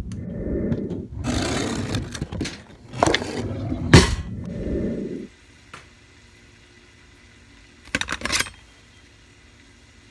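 Camera being handled and moved: rumbling and scraping with two sharp knocks for about five seconds, then a faint steady background, broken by a short rustle about eight seconds in.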